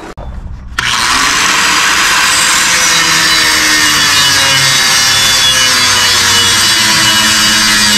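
Angle grinder cutting through a vehicle's exhaust pipe. It starts abruptly just under a second in and runs steadily and loud, its pitch wavering slightly as the disc bites.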